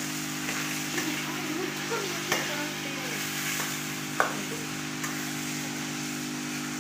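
Chicken pieces sizzling steadily in oil in a steel karahi, stirred with a steel ladle that clicks sharply against the pan a few times, most clearly a little after two seconds in and at about four seconds.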